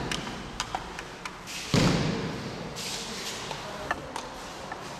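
A body landing heavily on tatami mats about two seconds in, a breakfall or throw, its thud dying away in the hall's echo, with lighter taps of feet on the mats around it.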